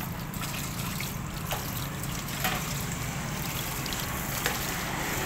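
Water poured from a plastic dipper trickling and splashing over the stainless-steel screw press of a coconut milk extractor as it is rinsed clean, with a few faint clicks and a steady low hum underneath.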